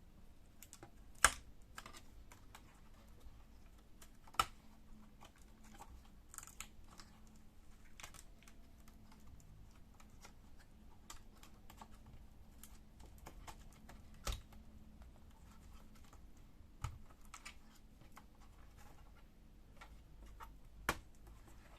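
Scattered small plastic clicks and taps from connector latches and cables being unplugged from a laptop's main board, with a sharp click about a second in and a few more near 4, 14, 17 and 21 seconds.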